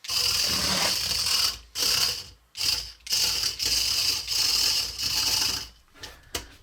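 Hexbug Fire Ant remote-control toy's small electric motors and gears whirring as its tracks drive it about. The whirring starts and stops in several runs with brief pauses between, as the controls are pressed and released.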